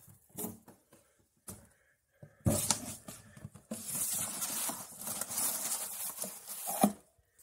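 A cardboard box of mason jars set down into a plastic tub: a sharp knock about two and a half seconds in, then about three seconds of cardboard scraping and rubbing against the plastic, ending in another knock.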